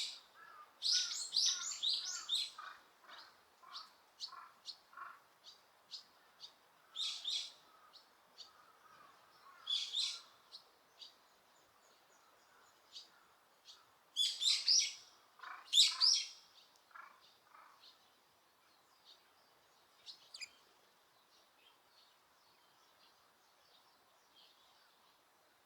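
Wild birds chirping in bursts of quick, high notes with some lower calls beneath. The loudest bursts come about two-thirds of the way through, and the calls thin to a few faint notes near the end.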